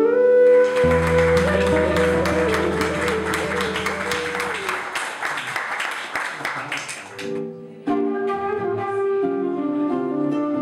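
Live flute, classical guitar and keyboard trio ending a piece on a held chord over a long low bass note while the audience applauds. The applause dies away, and about eight seconds in the guitar starts plucking the next piece.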